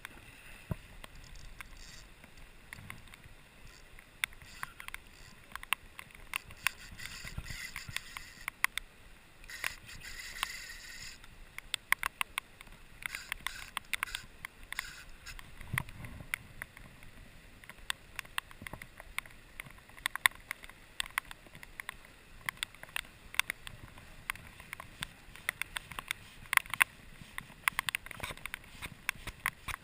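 Heavy rain: many irregular sharp taps of raindrops hitting close to the microphone, over a steady rush of river water.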